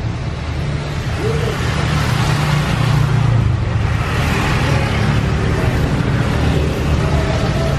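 Steady street traffic: a continuous low engine rumble with passing-vehicle noise, swelling a little in the middle.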